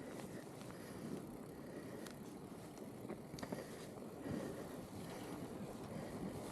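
Fat-bike tyres rolling through snow, a steady noise, with a few sharp clicks from the bike.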